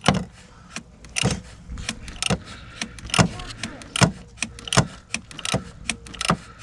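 Ratchet wrench clicking in short strokes, about one sharp click a second, as the plastic oil filter housing cap is gently snugged down.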